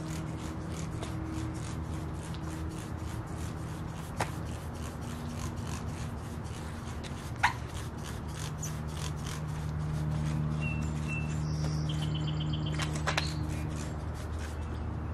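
Hand trigger spray bottle squirting liquid onto a boat hull in quick repeated pumps, with a couple of sharper clicks, over a steady low hum. A few short bird chirps come in about two-thirds of the way through.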